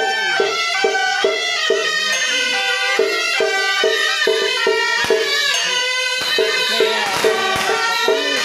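Traditional temple procession music: a wind instrument carries a melody over percussion struck about twice a second.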